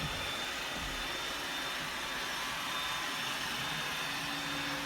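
Roomba robot vacuum running: a steady motor and suction whir with a faint high whine. A low hum comes in near the end.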